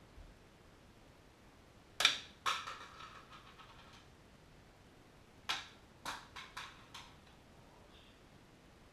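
A small thrown object strikes hard surfaces: a sharp knock about two seconds in, a second half a second later with a short ringing decay, then a run of lighter knocks and bounces about three seconds later.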